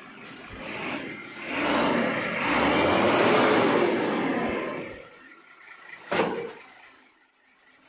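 Large diesel cargo truck pulling away, its engine noise swelling to its loudest in the middle and then fading. One brief sharp sound about six seconds in.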